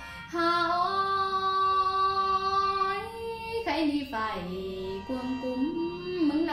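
Hát Thái (Tai Dam folk) song: a high woman's voice holds one long note for about three seconds, then sings a phrase that slides up and down between notes, over the song's backing track.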